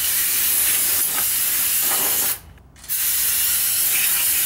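Aerosol brake cleaner sprayed onto a new brake rotor: a long hiss, a brief break about two and a half seconds in, then another long hiss.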